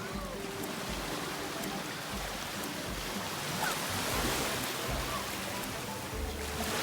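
Sea waves washing on a beach, the rush of surf swelling about four seconds in, with faint music underneath.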